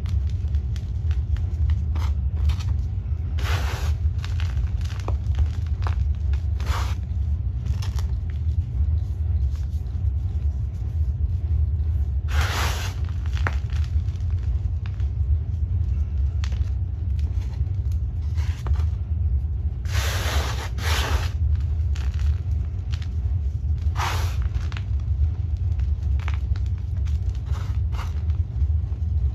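Hands squeezing and crushing a block of gym chalk coated in shaving cream and sand, giving irregular soft crunches and crumbles, a few of them louder, about 3.5, 12.5, 20 and 24 seconds in. A steady low rumble runs underneath and is the loudest thing throughout.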